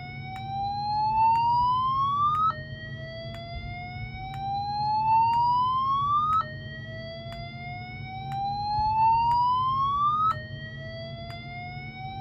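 EST Genesis G1R-S7VM fire alarm speaker strobe sounding the slow whoop evacuation tone. A tone rises steadily in pitch and loudness over about four seconds, drops back and starts again, three times, with faint ticks about once a second.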